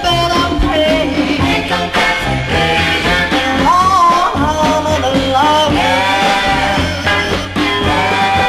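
Soul song playing a passage between verses with no lead vocal: the full band with drums and a steady beat, and melody lines that slide in pitch.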